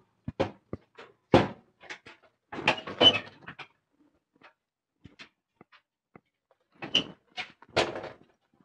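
Irregular knocks and clunks as the seat of an electric cargo tricycle is lifted and handled, the loudest clusters about three seconds in and near the end.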